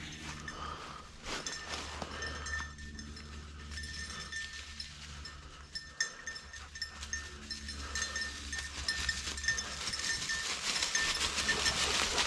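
Footsteps and rustling through field brush, with a faint bell-like ringing that comes and goes; the rustling grows louder over the last few seconds.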